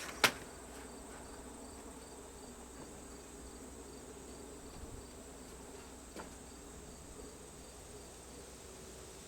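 Faint, even insect chirping, like a cricket, at about three chirps a second over a steady low hiss, with a single sharp click just after the start.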